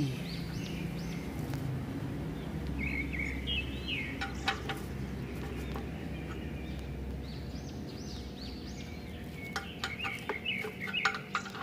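Birds calling in the background, chicken-like clucks and short chirps in several bouts, with a few sharp metallic clicks, mostly near the end, as a wrench works the oil drain plug under the car.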